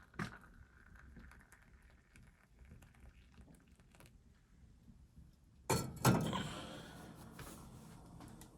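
A few light knocks and clicks, then two heavy thunks in quick succession about six seconds in, each dying away briefly.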